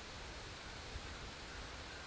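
Soft, steady breath blowing into a smoking tinder bundle to bring an ember up to flame: an even rushing hiss with no distinct strokes.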